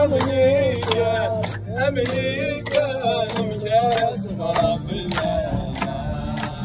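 Young men singing a lively song to a strummed acoustic nylon-string guitar, with the group joining in and clapping hands to a steady beat.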